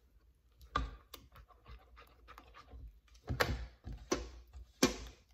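Silicone spatula stirring chocolate chips into thick batter and scraping the sides of a stainless steel mixing bowl, in irregular strokes, with the sharpest scrapes in the second half.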